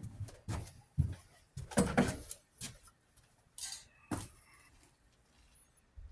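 Irregular knocks, clicks and rustles of handling, with the loudest in the first two seconds, dying away after about four seconds, with one faint knock near the end.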